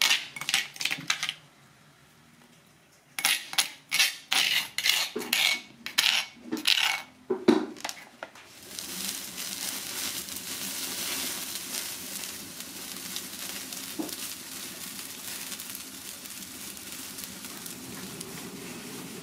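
A metal spoon scraping and knocking against a stone mortar, a string of sharp clicks and scrapes as spice paste is scooped out. From about eight and a half seconds in, a steady hiss of an open fire takes over.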